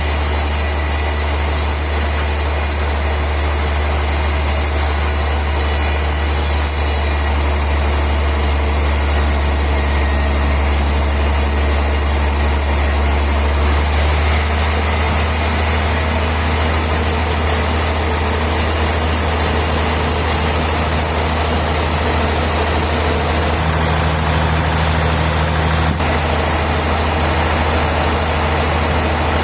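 Industrial sawmill bandsaw machinery running steadily with a strong deep hum and a constant hiss over it; the low hum shifts slightly about halfway through.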